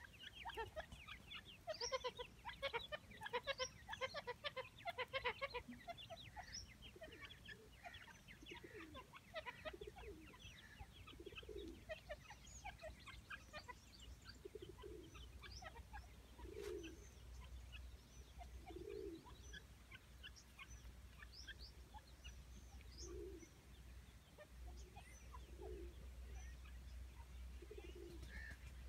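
Francolin (teetar) calling: a busy run of rapid clucks and chirps for the first six seconds or so, then soft low clucks every two to three seconds, with thin high chirps scattered between them.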